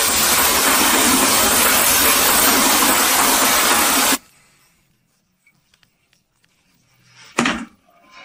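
A steady, loud rushing hiss that cuts off suddenly about four seconds in. Then it is nearly quiet, with one brief loud sound near the end.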